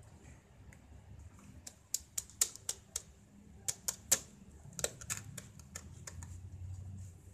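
A kitchen knife being worked into the shell of a spiny lobster on a wooden board: an irregular run of sharp cracks and clicks from the shell and the blade, starting about two seconds in and stopping near the end.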